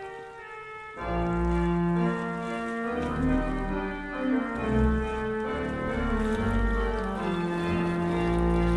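Background music of long held chords; it grows louder with deep bass notes about a second in.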